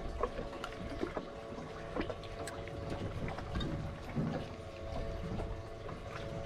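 Water sloshing and trickling around a small fishing boat, over a faint steady hum and a few light clicks.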